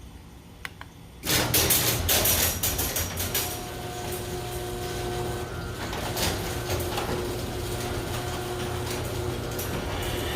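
Garage door opener starting up about a second in with a burst of rattling and clanking, then running steadily as the door travels, with a steady motor hum.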